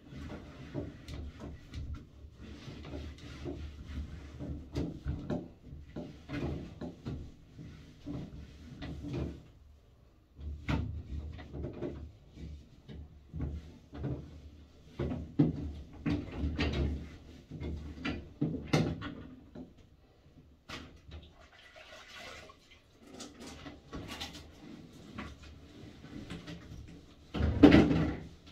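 Irregular knocks, clicks and rustles of a person moving about and handling things in a small tiled bathroom, with one louder knock near the end.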